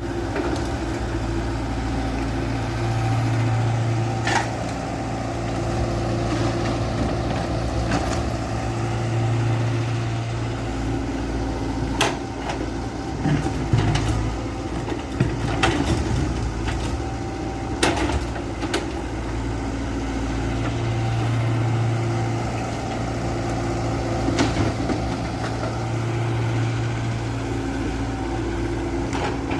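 Excavator and dump truck working: a steady mechanical hum that swells louder for a few seconds at a time, with scattered sharp clicks and knocks.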